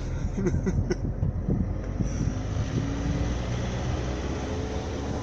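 A car running along the road: a steady engine and road rumble, with a few short knocks in the first second or two.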